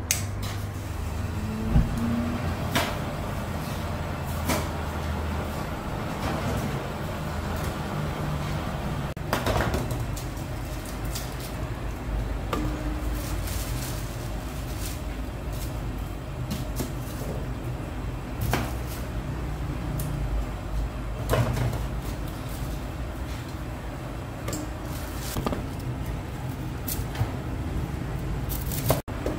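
Kitchen work: scattered knocks and clicks of pots, bowls and onions being handled, over a steady low hum.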